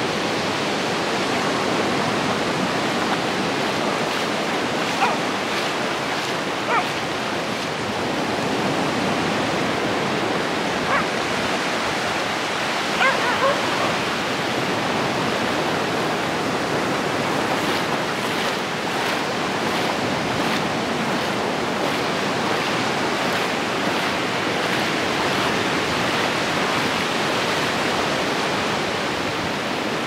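Small surf waves washing steadily onto a sandy beach, with a handful of short dog barks between about five and fourteen seconds in.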